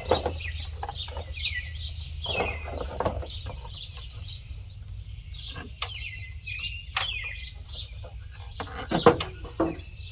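Birds chirping and calling repeatedly in short, falling notes over a low steady hum, with scattered sharp clicks and knocks, the loudest a cluster near the end.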